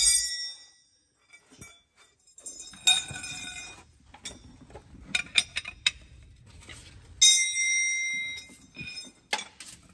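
Metal hand tools clinking: sockets and wrenches picked up and set down on a concrete floor. A run of quick clicks comes about five seconds in, then a loud ringing clang about seven seconds in.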